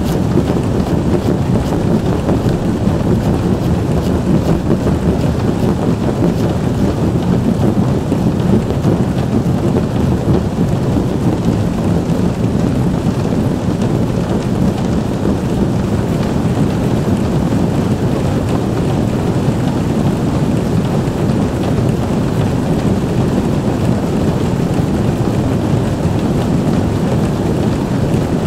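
62 prepared DC motors each swing a cotton ball on a thin wire against the top of a 60 cm cardboard box. The many soft strikes on the hollow cardboard merge into a dense, steady mass of tapping that is strongest in the low range.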